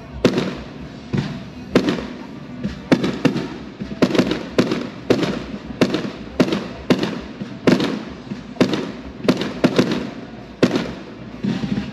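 Fireworks display: a steady barrage of aerial shell bursts, about two loud bangs a second, each echoing briefly.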